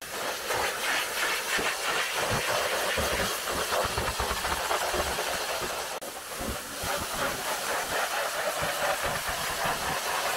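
Pressure-washer water spray: a steady hiss with uneven low rumbling underneath, dipping briefly about six seconds in.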